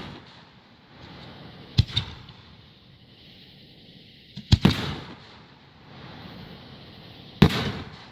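Aerial fireworks booming close up at the launch site: sharp reports about two, four and a half and seven and a half seconds in, the middle one a quick cluster of several. Each trails off over about half a second.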